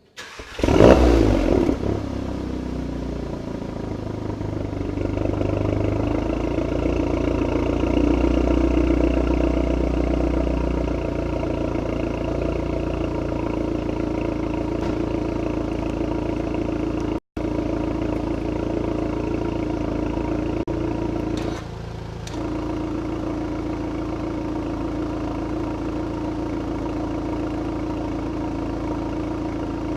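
Volkswagen Golf GTI Clubsport's turbocharged 2.0-litre four-cylinder starting for the first time through a newly fitted Krystal titanium exhaust: it fires with a loud flare about a second in, then settles into a steady idle. About 21 seconds in the idle drops to a quieter note.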